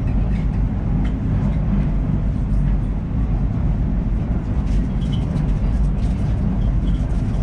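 Steady low rumble of vehicle noise, with faint voices in the background.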